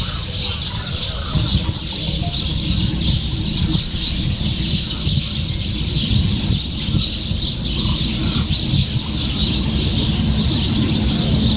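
A dense, continuous chorus of many birds chirping and calling at a wetland, over a steady low rumble.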